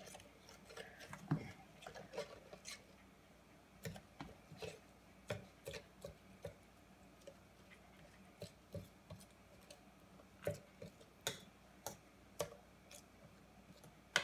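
Metal fork clinking and tapping against a stainless steel bowl in irregular light ticks while stirring a wet, mushy food mix.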